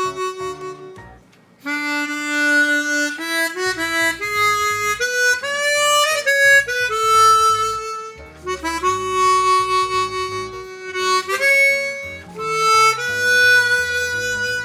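Hohner Super 64 chromatic harmonica played as a melody of held and moving single notes, with a short break about a second in.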